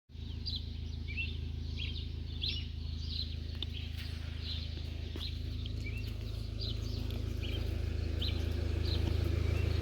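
Small birds chirping in quick, short calls, two or three a second, over a steady low hum that slowly grows louder toward the end.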